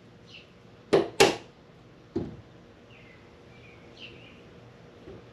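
A workpiece being tapped down with a hammer to seat it in a milling-machine vise: two sharp taps about a second in, a quarter-second apart, then a lighter one about a second later.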